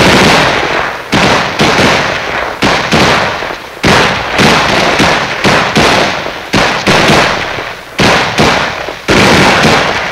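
M16A1 rifle firing a dozen or so single shots at an uneven pace, one or two a second, each with a short echoing tail. The rifle is back in action after LSA oil was squirted into its receiver to get corroded ammunition to chamber and extract.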